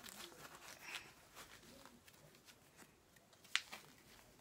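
Faint rustling and handling noises of goalkeeper gloves being pulled onto the hands, with scattered small ticks and one sharp click about three and a half seconds in.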